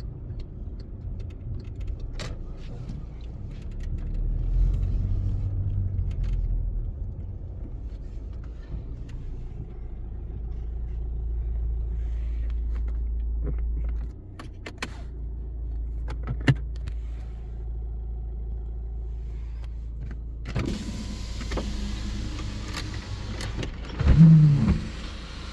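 Cabin sound of a Volkswagen Passat B7 on the move: a steady low rumble of engine and tyres with scattered small clicks, dropping a step about 14 s in. About 20 s in, a broad rush of outside noise comes in, and there is a brief loud low thump near the end.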